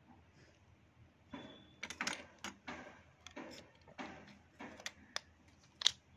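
Rite Mate Stone Crush metal ball pen being put back together by hand, the refill fitted and the nib section worked into the metal barrel: a run of small irregular clicks and scrapes of metal parts, with one sharper click near the end.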